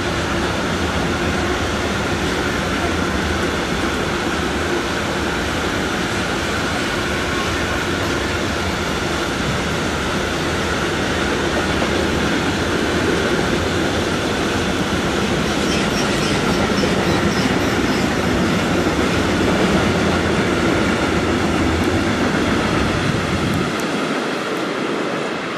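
Long bulk freight train of hopper wagons rolling past on the rails: a steady, loud rumble of wheels and wagons. Near the end the deep rumble drops away suddenly.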